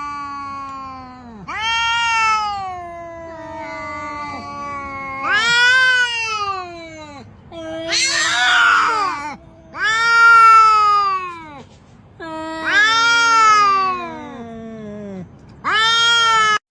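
A domestic cat meowing: a series of about eight long, drawn-out meows, each a second or two, rising and then falling in pitch. The one about halfway through is harsher and noisier.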